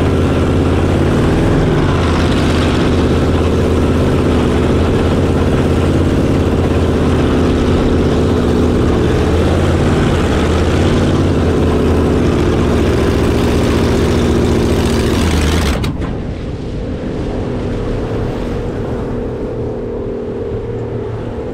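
Homemade drag race boat's engine running hard at speed, the pitch rising and falling a little, with water and wind rushing past. About sixteen seconds in it cuts off sharply and gives way to a quieter, lower drone as the boat runs on: the engine failing, which the crew describe as the motor cooking itself.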